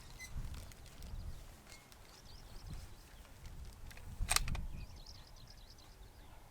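Faint birds chirping over a low outdoor rumble, with a single sharp click about four seconds in.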